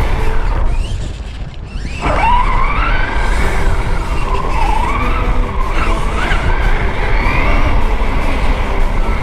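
Axial Bomber RR10 RC crawler's stock 35T brushed motor and geartrain whining, the pitch rising and falling with the throttle over a rumble of tyres on rough ground. The whine fades out about a second in, then surges back about two seconds in.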